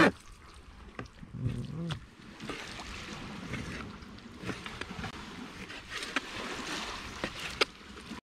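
A kitchen knife cutting lobster tail meat on a plastic cutting board, with a few sharp knocks of the blade against the board. Underneath is a steady wash of water.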